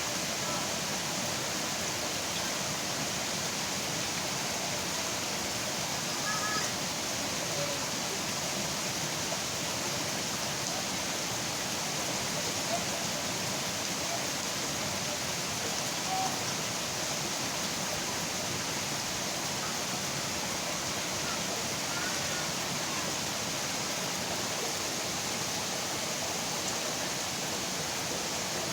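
Steady rain falling, an even hiss that does not let up, with a few faint short sounds rising above it now and then.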